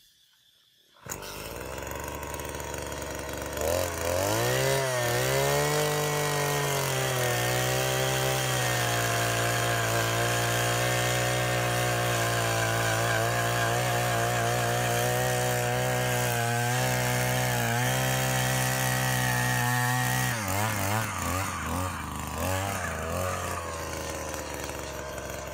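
Two-stroke petrol earth auger running as it bores a hole in soil: it starts about a second in at a low speed, revs up around four seconds and holds a steady high speed while drilling, then its speed rises and falls a few times near the end and settles lower.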